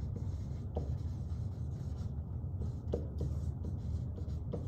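Dry-erase marker writing on a whiteboard: short scratchy strokes with a few sharper taps, over a steady low room hum.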